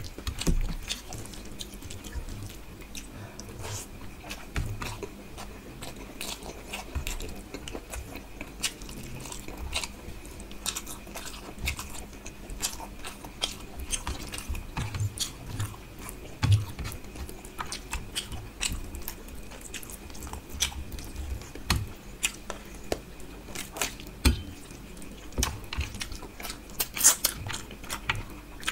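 Chewing and wet mouth clicks of someone eating rohu fish curry with rice by hand, with fingers squishing rice and fish in curry against a steel plate. Many sharp little clicks and smacks follow one another irregularly.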